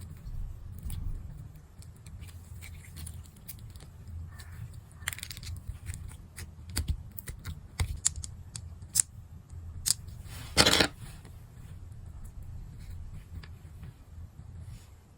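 Small craft-handling sounds from working air-dry clay and tools: scattered light clicks and taps, with one louder, brief scratchy sound about ten and a half seconds in, over a low steady hum.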